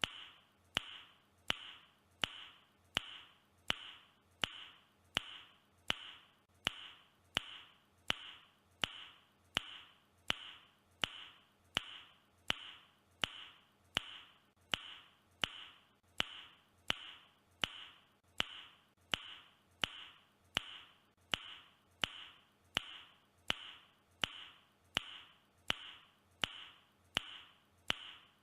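A man's sharp mouth click, repeated over and over at an even pace of about one and a half clicks a second, each with a short ringing tail.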